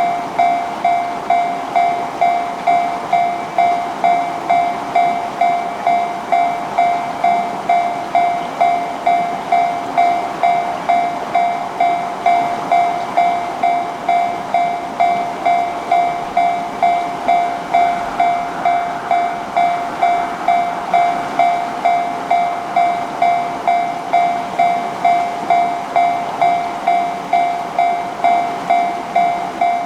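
Japanese railroad crossing warning bell (the "kan-kan" alarm) ringing continuously, an even run of bell-like strikes at about three every two seconds, each dying away before the next: the crossing is closed for an approaching train.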